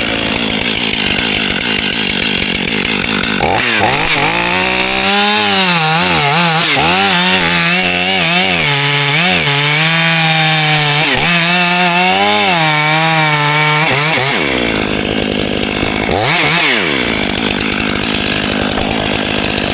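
Stihl MS 500i two-stroke chainsaw starting up and running at high revs, its engine note dipping and recovering over and over as it cuts through cherry wood. Near the end the throttle drops off once and opens again.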